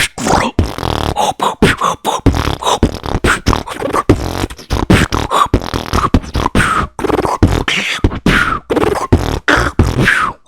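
Beatboxing: a fast run of vocal kick, snare and hi-hat sounds with some pitched vocal sweeps, stopping abruptly at the end.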